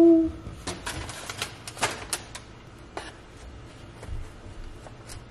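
A held tone cuts off just after the start. Then comes a string of irregular clicks and taps from a kitchen utensil working into food, knocking against the counter and a foil-lined tray.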